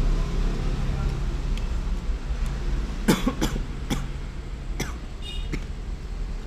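A person coughs a few times in quick succession about three seconds in, over a steady low hum.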